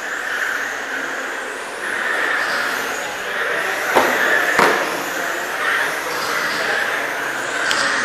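1/10-scale electric USGT touring cars racing, the whine of their brushless motors and drivetrains swelling and fading as they pass. About four seconds in come two sharp knocks a little over half a second apart.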